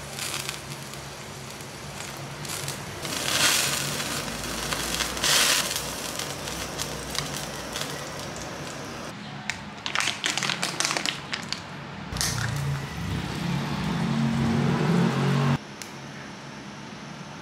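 Meat rolls sizzling and crackling on a Uniflame mini roaster's wire mesh over a Kovea Supalite titanium gas stove, with the burner hissing underneath; the sizzle swells louder twice in the first few seconds. Later come a run of quick clicks and then a low hum that cuts off abruptly.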